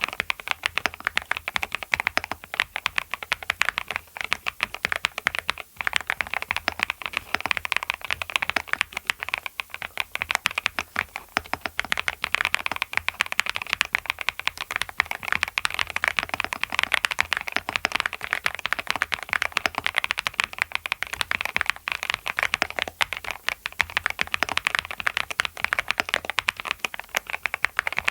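Mechanical keyboard fitted with Clackbaits Clackbits linear switches being typed on steadily, a dense, continuous patter of keystroke clacks.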